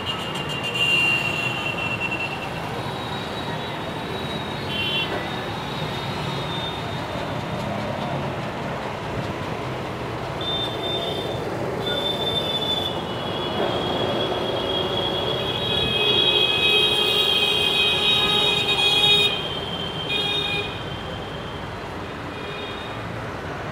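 Steady noise of busy road traffic and strong wind. Over it come high-pitched squealing tones in the second half, loudest about three quarters of the way in.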